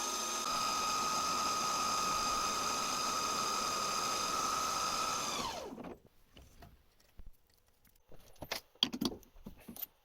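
Small metal lathe running at steady speed with a high motor whine while a 6 mm drill bores into a steel block. It winds down and stops about six seconds in, followed by a few light clicks and knocks.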